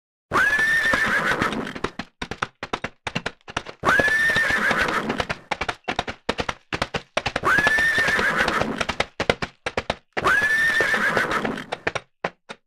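A running horse neighing four times, each call lasting about a second and a half, with the quick clatter of its hoofbeats striking the ground between the calls and thinning out near the end.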